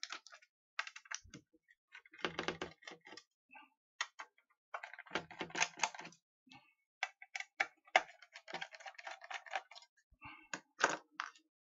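Irregular small clicks, taps and scrapes of hands working at the screws and cover of a metal server power-supply case. There are busier bursts of scraping about two seconds in, around five to six seconds in, and near the end.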